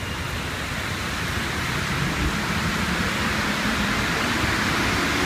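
Paris Métro train at the platform, giving a steady rushing noise over a low rumble that grows slowly louder.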